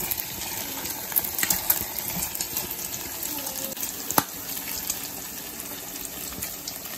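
Bacon frying in a skillet: a steady sizzle with scattered sharp pops of spitting grease, the loudest pop about four seconds in.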